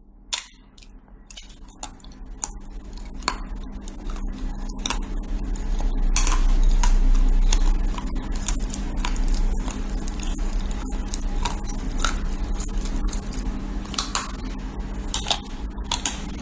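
Irregular sharp clicks and taps of small hard objects over a steady low hum.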